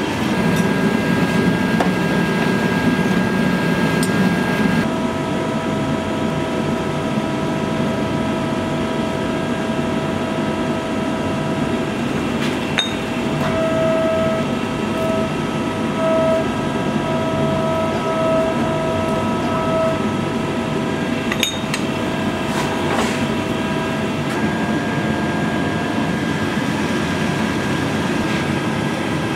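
Steady roar of forge-shop machinery with a constant hum under it, and a few isolated sharp knocks.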